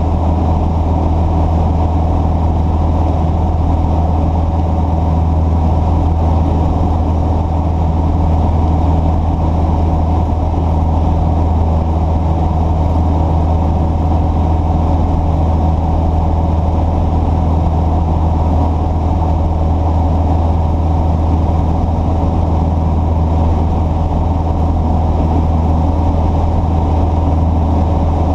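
Steady low engine drone that holds one pitch without revving up or down.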